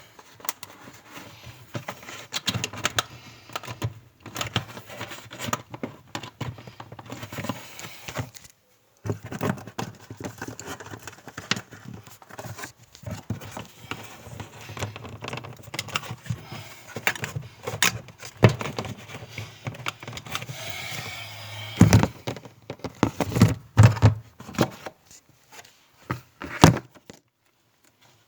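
Repeated clicks, knocks and rattles of hands working on refrigerator parts, with a low steady hum underneath that stops briefly about nine seconds in and again near the end; the loudest knocks come about three-quarters of the way through.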